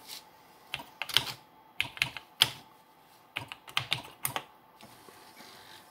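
Keystrokes on a computer keyboard: a dozen or so sharp clicks in uneven groups as a command is typed, stopping about four and a half seconds in.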